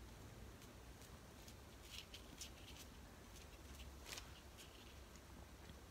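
Near silence with a few faint, soft dabs and rustles of a paint-loaded cleaning sponge on paper around pressed leaves.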